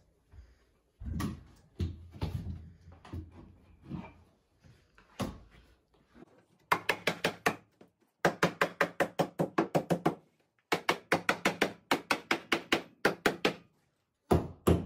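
A hammer striking a rough-sawn barn-wood board fitted along the bottom of a wall. At first there are a few scattered knocks as the board is set in place. From about seven seconds in come rapid bursts of hammer blows, about seven a second, with short pauses between bursts.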